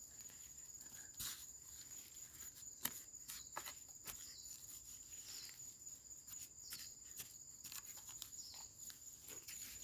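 Faint, irregular scraping and crunching of a metal digging blade and a bare hand working dry, lumpy soil, with an occasional sharper knock, over a steady high insect drone.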